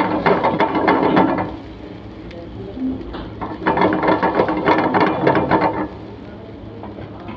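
Metal spatula scraping and clattering against a frying pan in two bouts of rapid strokes, stirring coconut powder into frying fish.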